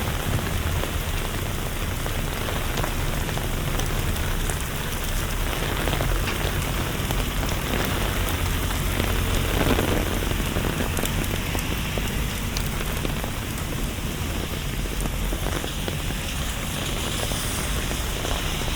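Steady rain falling: a dense, even patter of drops over a low rumble.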